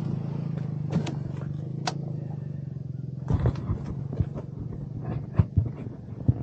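Royal Enfield Himalayan 450's single-cylinder engine running at low revs on a rocky climb, with scattered knocks and clicks from tyres and suspension over stones that grow more frequent from about three seconds in.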